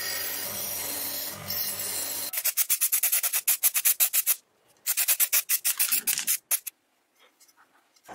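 Wire wheel on a running bench grinder scrubbing rust off a steel guard cover for about the first two seconds. Then spray paint hissing in quick pulses, about six a second, in two runs, followed by a few light knocks near the end.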